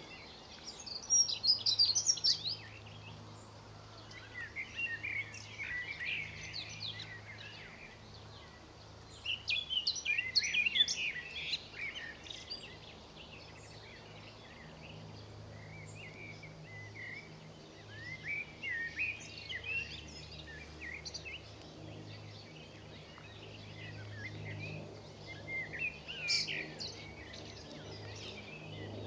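Small songbirds chirping and singing in short bouts every few seconds, over a faint steady low hum.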